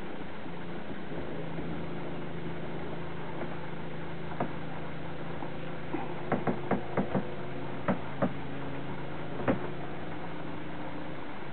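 Steady low mechanical hum with a scattered series of sharp knocks in the second half, a quick cluster of five about six seconds in and the loudest knock near the end.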